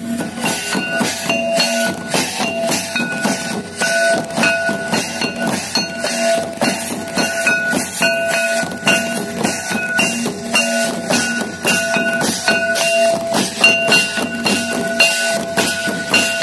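Traditional Santal drum ensemble playing: large kettle drums beaten with sticks and double-headed barrel drums keep a fast, steady beat, with brass hand cymbals clashing. A held, high pitched tone sounds on and off over the drumming.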